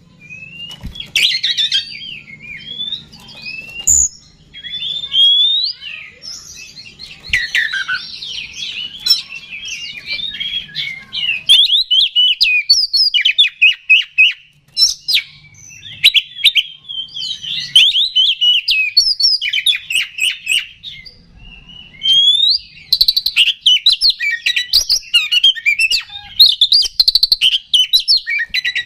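Oriental magpie-robin (kacer) singing a loud, almost unbroken, varied song of whistled glides and fast rattling runs of repeated notes. It pauses briefly twice, about halfway through and again near two-thirds of the way in. This is the full, fired-up song used as a lure to provoke other kacer into singing.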